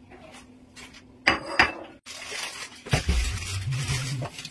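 Cookware and utensils clanking: two sharp metal clanks a little over a second in, then a stretch of busy clattering and rustling as a pot is handled.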